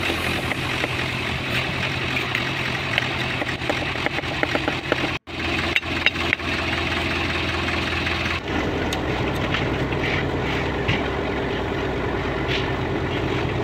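Engine running steadily with a low, even hum. It cuts out for an instant about five seconds in, and its sound changes about eight seconds in.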